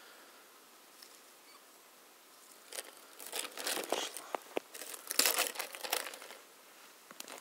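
Irregular crunching and crinkling that starts a couple of seconds in and lasts about four seconds: crusted snow and stiff winter clothing as a person kneels at an ice-fishing hole and pulls a line in by hand.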